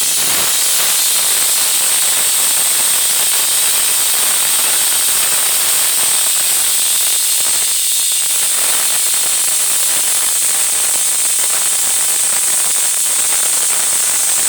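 Pressure cooker whistling: steam jets steadily out past the weight valve in a loud, high-pitched hiss, without a break.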